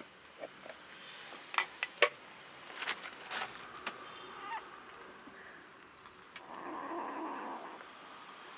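Kitten eating wet cat food from a plastic tray: a run of sharp, wet smacking and chewing clicks, most of them between one and a half and four seconds in. About six and a half seconds in comes a brief rushing noise lasting about a second.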